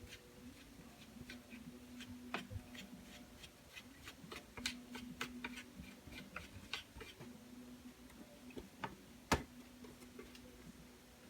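Faint, irregular light clicks and taps of the small plastic parts and circuit board of an Akai MPK Mini keyboard controller being handled during reassembly, with one sharper click near the end.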